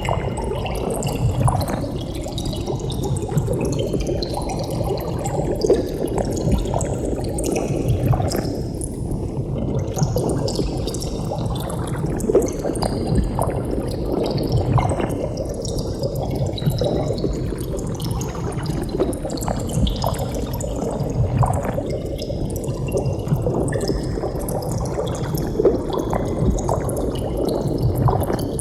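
Continuous bubbling of air bubbles rising through water: a dense, steady stream of small bubbles gurgling and popping, with a slow phasing sweep gliding up and down through it.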